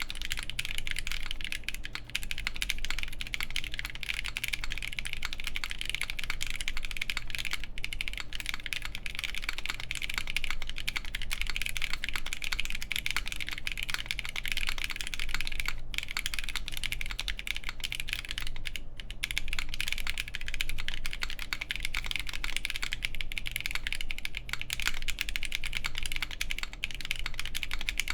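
Continuous fast typing on a Gray Studio BD60 mechanical keyboard with lubed Haimu Pastel Peach linear switches, an FR4 plate and GMK keycaps: a dense run of keystrokes with no switch click, broken by a couple of brief pauses.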